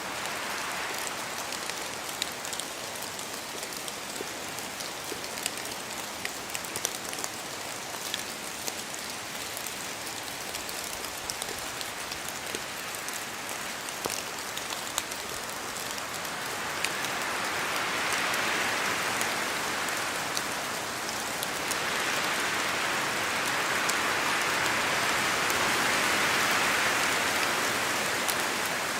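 Steady rain in a forest, with many single drops ticking as they fall from the trees. In the second half, wind surges through the trees twice, each gust swelling and fading over a few seconds.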